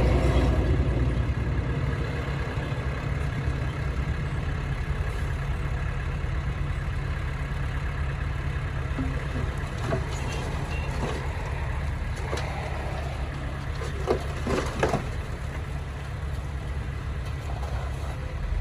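Heavy diesel earthmoving engine running steadily with a low rumble, with a few short knocks and squeaks between about ten and fifteen seconds in.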